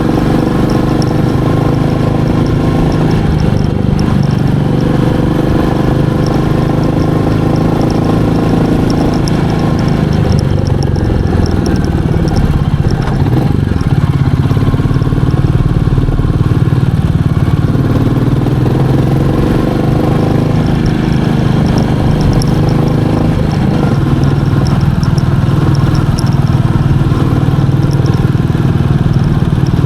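Royal Enfield Meteor 350's single-cylinder engine running steadily on the move, its pitch rising and falling a few times near the middle as the throttle changes.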